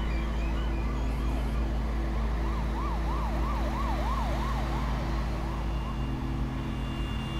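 Emergency-vehicle siren in a fast up-and-down yelp, about three sweeps a second, swelling to its loudest midway and then fading. Underneath is a steady low rumble with a constant hum.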